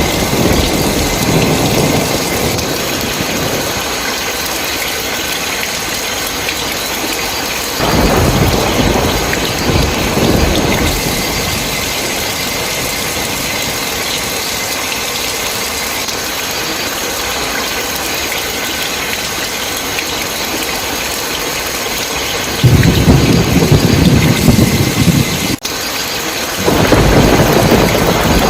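Steady heavy rain hissing, with low rolls of thunder rumbling in four times: at the start, about eight seconds in, and twice near the end.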